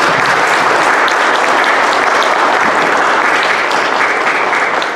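Audience applauding, a steady dense clapping that begins to fade near the end.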